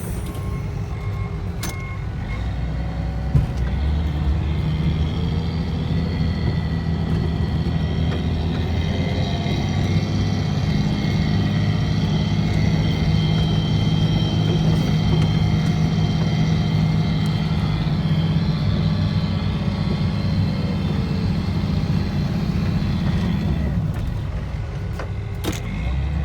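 Wheel loader's diesel engine running steadily while pushing snow. It works harder and grows louder from about a third of the way in, then eases off near the end.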